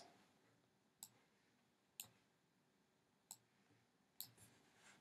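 Computer mouse clicking: four quiet single clicks, about a second apart, with near silence between them.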